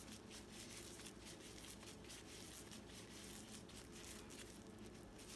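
Faint rustling of disposable plastic gloves and soft squishing as hands press and shape shami kebab mixture into a patty, over a faint steady low hum.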